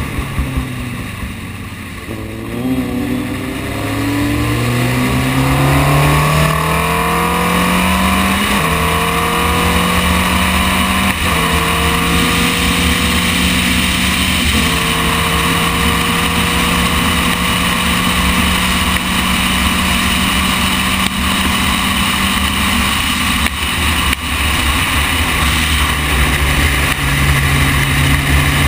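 Formule Renault 2.0 race car's two-litre four-cylinder engine, heard from the cockpit, pulling hard with its revs climbing and dropping suddenly at three quick upshifts of the sequential gearbox, then held at high revs for a long stretch. Near the end the revs fall as the car slows.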